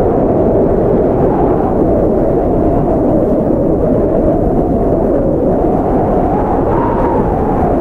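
Blizzard wind howling steadily: a deep rushing noise with a hollow whistle that drifts up and down in pitch and rises near the end.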